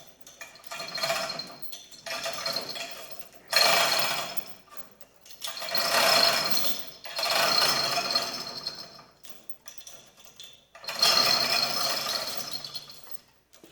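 Overhead crane's chain hoist lifting a heavy engine block in a series of short runs, each a burst of mechanical rattling and whirring with brief pauses between them.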